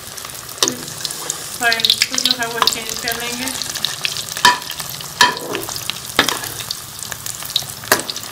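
Breaded chicken nuggets deep-frying in hot oil in a metal pan over a medium flame, a steady crackling sizzle. A slotted metal spoon clinks against the pan five times as the nuggets are turned.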